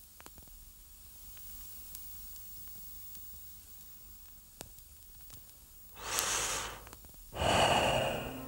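A person taking two heavy breaths, the second a long sighing exhale, after several seconds of faint hiss with a few soft clicks.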